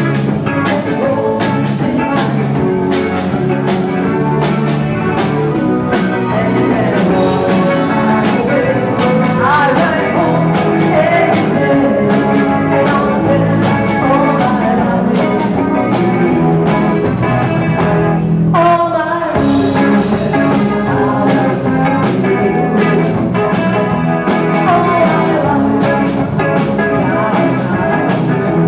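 Live band playing: a woman sings into a microphone over electric guitar, bass guitar and a drum kit keeping a steady beat.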